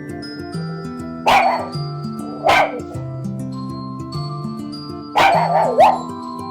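Black Shiba Inu barking: two short sharp barks about a second apart, then a longer bark that breaks into a rising yelp near the end, over soft background music.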